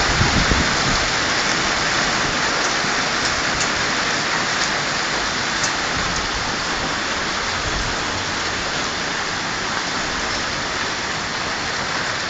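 Hailstorm with heavy rain: a dense, steady hiss of hail and rain pelting the street and buildings, with a few faint sharp ticks. A low thunder rumble dies away in the first second.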